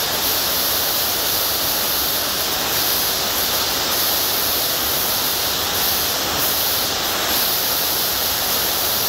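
Steady, loud hiss like static, even and unchanging, with no speech or handling sounds standing out of it.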